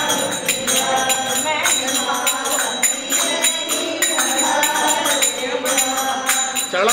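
Group of women singing a devotional song together, with a steady beat of hand-claps and jingling percussion keeping time.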